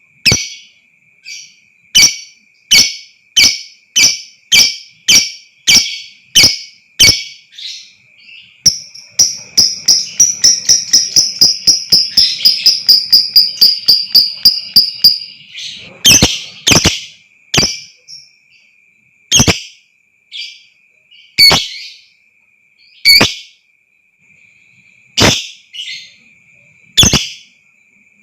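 Lovebird calling: sharp separate calls about twice a second, then, about nine seconds in, a fast chattering run of notes lasting some six seconds, the long "ngekek" trill, followed by spaced single calls again. A faint steady high tone runs underneath.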